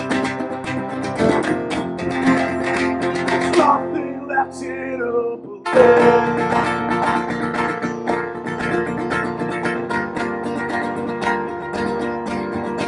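A live acoustic band playing, led by strummed guitars. The music breaks off for a moment about halfway through and then comes back in at full strength.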